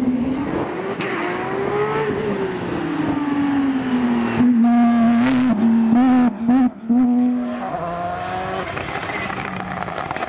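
Rally car engine revving hard, its pitch climbing and falling with the gear changes. It is loudest about halfway through, held high with a couple of brief cut-outs, then drops to a lower pitch near the end.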